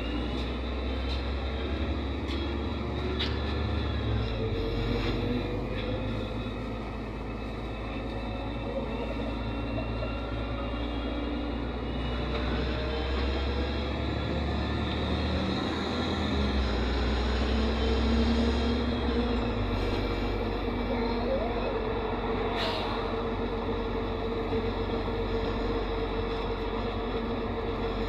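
Inside a NefAZ 5299 city bus under way: its Cummins ISBe diesel engine and Voith automatic gearbox running, with low rumble and road noise and a thin whine that slowly rises and falls with speed. One sharp click late on.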